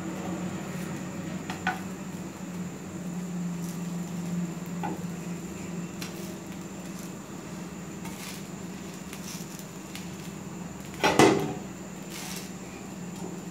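Slotted spatula knocking and scraping on a flat dosa griddle (tawa) as the folded dosa is moved: a few light knocks, then one loud clatter near the end, over a steady low hum.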